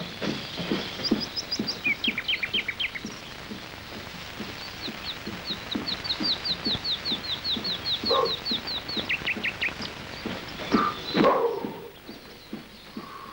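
Small songbirds chirping in rapid trills of short high notes, over irregular low knocks. Near the end there is one louder, lower call that falls in pitch.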